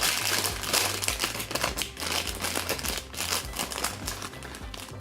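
Plastic packaging crinkling and rustling, with a rapid run of small clicks and taps, as a keychain is handled and pulled out of its wrapping.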